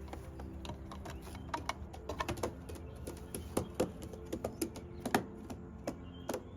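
A quick, irregular run of light clicks and taps over a steady low hum.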